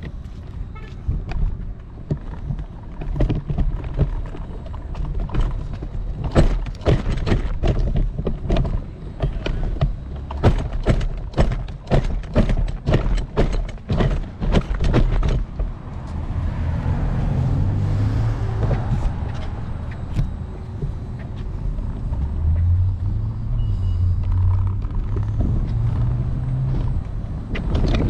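Electric scooter, camera mounted on its handlebars, being taken down concrete steps: sharp knocks and rattles about twice a second. About halfway through these give way to a steadier rumble with a low wavering hum.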